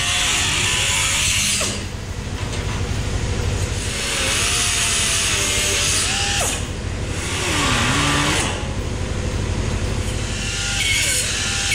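Pneumatic cutoff wheel and right-angle die grinder cutting and grinding steel sheet metal. The tool runs in about five separate stretches, each starting and stopping, with a high hiss of abrasive on steel.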